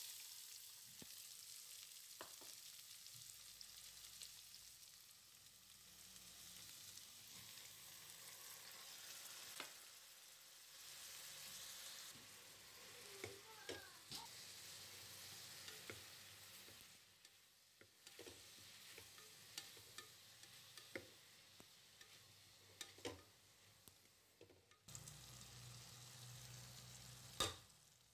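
Chopped onions and tomatoes sizzling quietly in oil in a pressure cooker pot, with a steel spoon stirring and scraping against the pot in scattered clicks and taps. A louder sharp tap comes near the end.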